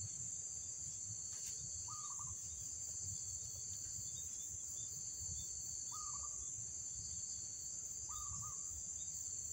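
A steady, high-pitched chorus of insects such as crickets, with a bird giving a short chirping call three times, about two, six and eight seconds in.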